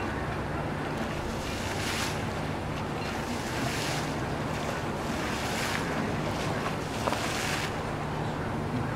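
Wind buffeting the microphone over a steady low hum, with several brief rushing swells of noise.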